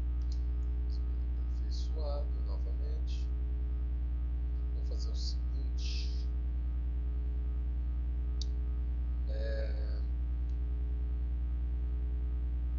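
Steady electrical mains hum picked up by the microphone, with a few scattered mouse clicks through it.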